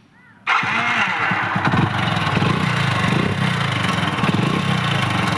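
Hero Splendor Pro's single-cylinder four-stroke engine comes in suddenly about half a second in and then runs steadily with a rhythmic clatter. The clatter is a timing-chain rattle, a 'kat kat kat' sound, from a stretched timing chain and worn tensioner roller.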